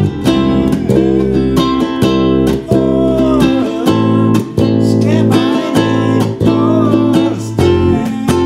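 A sunburst electric bass and a small strummed acoustic stringed instrument playing a song together: a plucked bass line under strummed chords, with notes and chords changing in a steady pulse.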